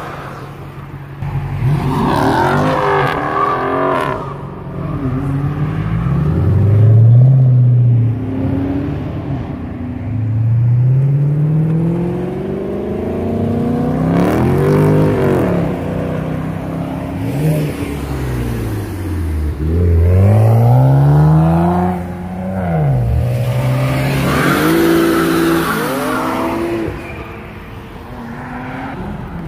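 Cars accelerating away one after another past the camera, each engine note climbing through the gears and dropping at the shifts, with louder passes that rise and fall in pitch as the cars go by.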